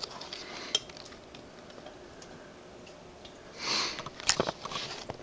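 Handling noise: scattered light clicks and knocks, with a short rustle about three and a half seconds in followed by a sharp click.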